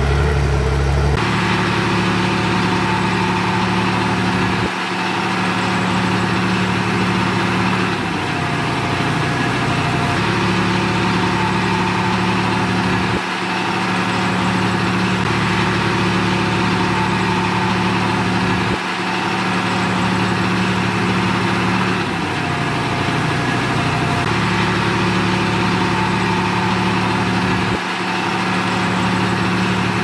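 Heavy diesel engine of earthmoving equipment running steadily under work. Its note changes abruptly about a second in, then drops briefly every four to six seconds.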